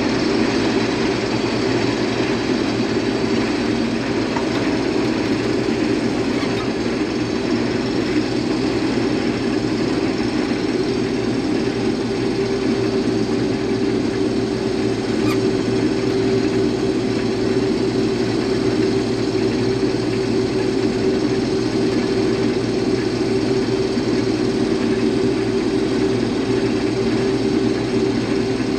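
Diesel engine of farm harvest machinery running steadily at a constant speed, an even low drone with no change in pitch.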